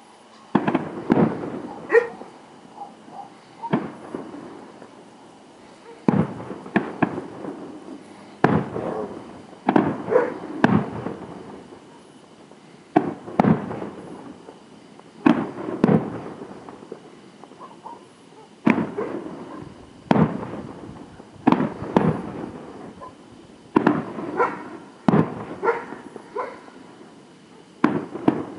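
Aerial fireworks shells bursting in a steady barrage: sharp bangs, mostly in clusters of two or three about every two seconds, each trailing off in a rolling echo.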